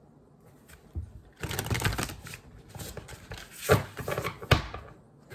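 Oracle cards being handled: a quick papery rattle of cards being shuffled or riffled, followed by two sharp taps as cards are set down on the table.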